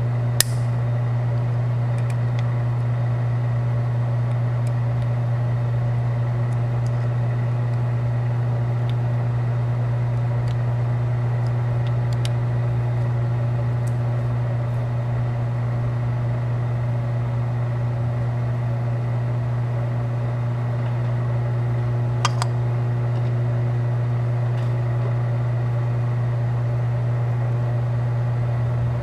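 Steady electric machine hum from shop machinery, with light metallic clicks about half a second in and again about 22 seconds in.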